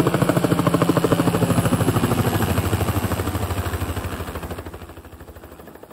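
Two-bladed crop-dusting helicopter flying low past, its main rotor beating out a fast, even chop over the engine. The sound is loud at first and fades over the last couple of seconds as it moves away.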